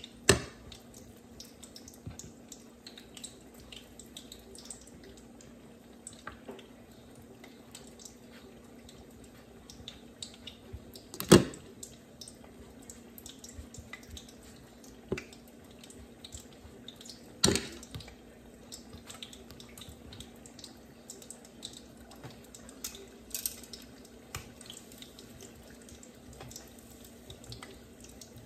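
Hot oil crackling and spattering steadily in a pot of frying lumpia, with a low hum underneath. About four sharp knocks of utensils cut through it, the loudest about a third of the way in.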